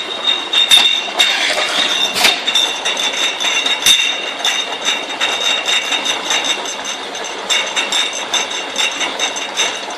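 Automatic sticker labeling machine and its bottle conveyor running, the motors giving a steady high whine. Glass bottles clink and knock against each other as they are pushed along in a line, with a few sharper knocks in the first four seconds.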